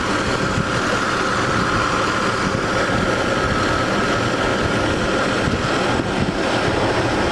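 Toyota Land Cruiser engine idling steadily with the air conditioning on, while R134a refrigerant is charged into the system. A steady, higher-pitched hum rides over the idle and fades about halfway through.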